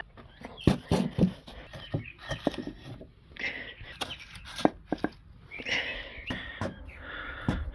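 Irregular wooden knocks and clatter as small cut 2x12 wood blocks are handled and set in place as supports, with scraping and rustling in between.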